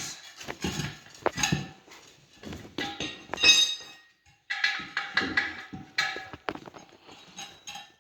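Irregular metallic clanks, knocks and scrapes as a dirt bike's rear tire, fitted with a mousse insert, is worked back onto its wheel rim, with some short ringing tones from the struck metal.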